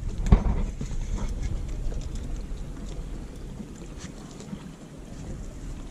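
Wind buffeting the microphone on an open fishing boat, a steady low rumble that slowly eases off, with one sharp knock about a third of a second in.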